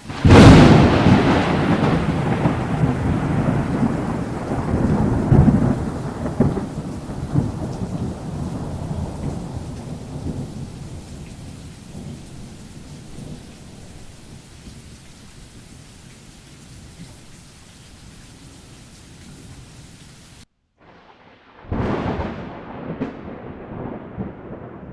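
A loud thunderclap, its rumble rolling on and slowly fading over about ten seconds, over the steady hiss of rain. After a brief break near the end, a second rumble of thunder.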